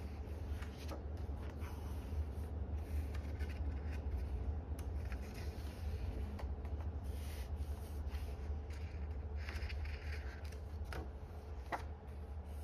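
Pages of a softcover photobook being turned by hand: paper rustling and sliding in short swishes, with a couple of sharp paper flicks near the end, over a steady low hum.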